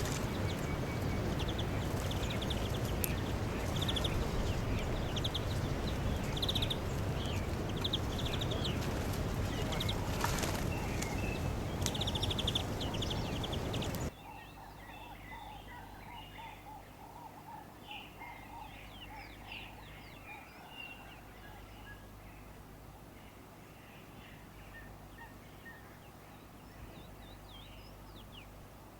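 Birds chirping and calling, with repeated high trills over a loud steady rushing background. About halfway through the background cuts off abruptly, leaving a quieter scene with a rapid run of lower calls and scattered high chirps.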